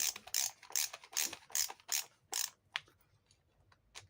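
Self-tapping screw being driven into a shoe heel with a hand screwdriver: a regular run of clicking, rasping strokes, about two or three a second, which stops about three seconds in.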